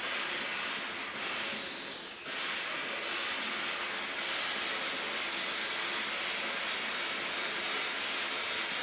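SB-7 spirit box sweeping the radio band, giving continuous static with a brief break about two seconds in.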